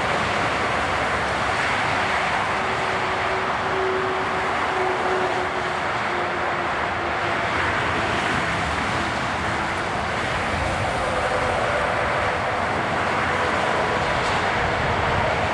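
Steady engine noise from idling vehicles and machinery around a parked aircraft, a continuous rumble and hiss with a faint wavering hum in the first half.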